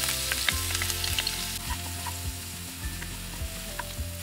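Crushed ginger and garlic sizzling in hot coconut oil in a nonstick wok, stirred with a wooden spatula that knocks lightly against the pan a few times.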